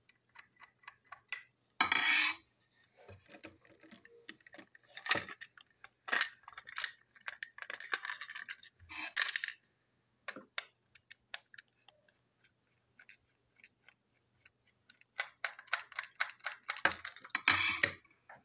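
Hand reassembly of a plastic battery-powered toy train engine with a screwdriver: a run of small clicks and rattles from plastic and metal parts and screws. Louder clattering comes about two seconds in, again from about five to nine seconds, and near the end.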